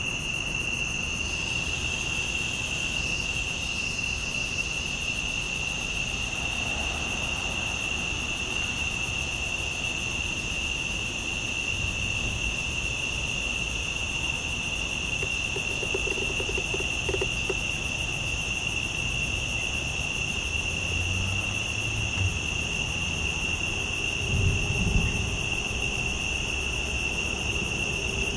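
Night insect chorus of crickets or katydids: a steady, high-pitched shrill drone held at two pitches, over a low background rumble. A brief low thump comes about 24 seconds in.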